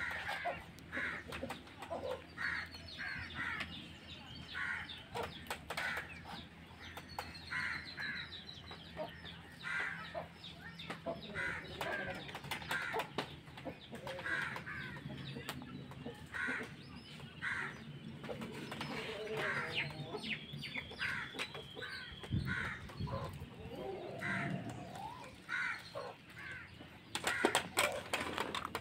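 Chickens clucking over and over, about once a second, with a small bird chirping now and then. Sharp clinks of a steel ladle on steel pots, bunched near the end.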